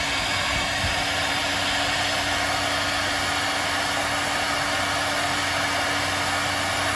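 Energer 2000 W heat gun running steadily: a constant rush of blown air over a low motor hum, as it warms a cold PVC drain tube to soften it.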